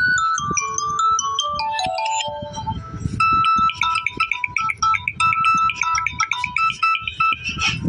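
Samsung Galaxy A13 5G ringtones playing. A bell-like melody steps down in pitch and ends about three seconds in. After a brief pause, a different ringtone of quick, repeated high notes starts.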